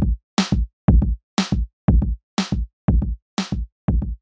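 Electronic drum-machine beat: a low kick drum about once a second alternating with a sharp snare hit halfway between, a steady two hits a second.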